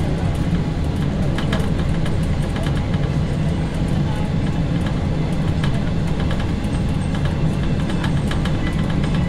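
Passenger train running through a tunnel, heard from inside its rear car: a steady, loud low rumble of the wheels and running gear on the rails, with light scattered clicks and rattles.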